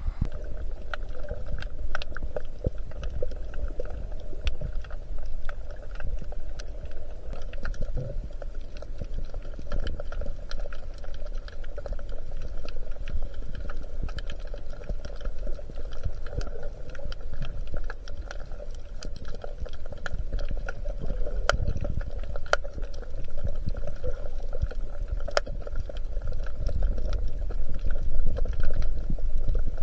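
Underwater sound picked up by a submerged camera: a muffled low rumble of moving water with many scattered sharp clicks and crackles.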